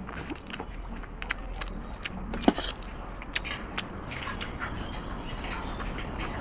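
Close-miked eating of Maggi instant noodles: wet slurping and chewing with many short mouth clicks, and a metal fork scraping against a steel tray. One sharper click stands out about two and a half seconds in.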